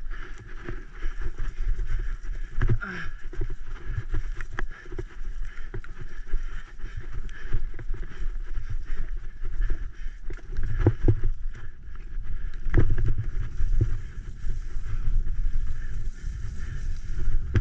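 Graziella folding bicycle ridden fast down a wet, muddy, bumpy trail: a steady low rumble of wind and rolling on the action camera's microphone, with irregular knocks and rattles as the bike hits bumps, bunched together about eleven and thirteen seconds in.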